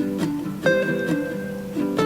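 Background instrumental music on a plucked string instrument: picked notes and chords that ring on, restruck about once a second.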